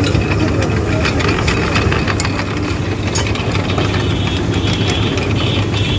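Engine of a sugarcane juice crusher running steadily with a low, knocking rumble, with scattered light clinks over it.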